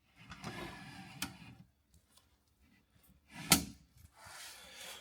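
Wooden campervan bench seat being pulled out: wood sliding and scraping, with a sharp wooden knock about three and a half seconds in.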